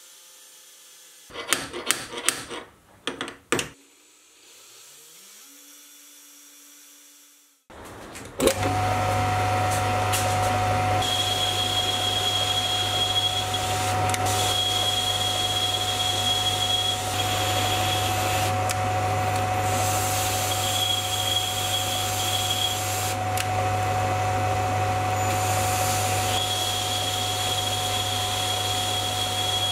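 A few sharp clicks, then about eight seconds in a mini lathe starts and runs steadily with a low motor hum while a boring bar cuts the 8-degree collet taper inside a steel ER32 collet chuck body. A high, thin whine from the cut comes and goes.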